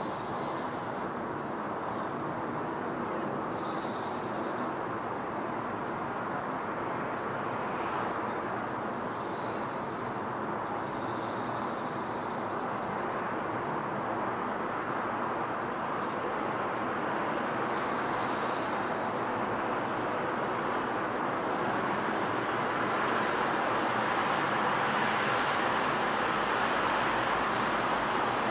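Steady distant road traffic, growing a little louder near the end, with a bird calling in short high phrases every few seconds.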